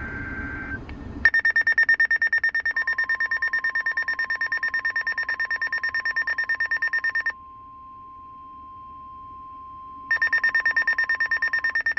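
Weather radio alarm beeping rapidly and loudly, with the steady NOAA Weather Radio warning alarm tone held underneath, which marks a warning about to be broadcast. The beeping stops about seven seconds in and starts again near the end, while the steady tone runs on alone in between.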